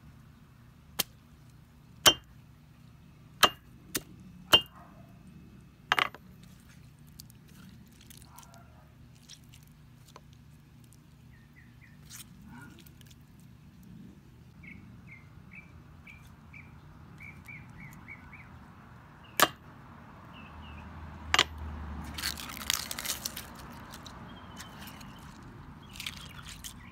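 A hammer strikes a tomato on a concrete slab, six sharp knocks in the first six seconds as it smashes the tomato to pulp. Two more knocks come later, followed by a short wet crunching as a hand crushes a peeled boiled egg. Birds chirp in the background.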